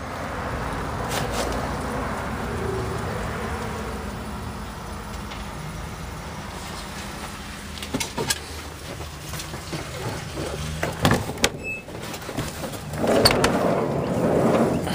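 A motor vehicle running nearby, a steady noise with a low hum that swells in at the start and holds, with scattered knocks and clicks from about eight seconds in and a louder rustle near the end.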